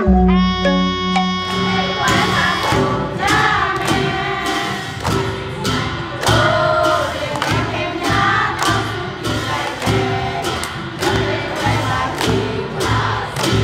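Group of voices singing together in chorus over a steady percussive beat, after a couple of seconds of held instrumental notes at the start.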